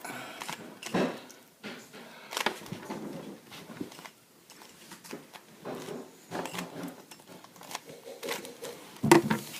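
Plastic Rubik's cube being turned by hand, its layers clicking and clacking in quick, irregular bursts.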